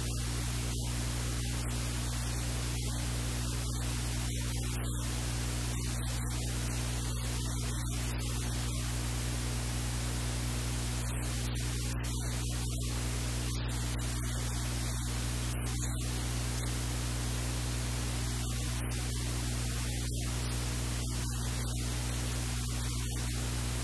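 Steady static hiss over a low electrical hum, even in level throughout.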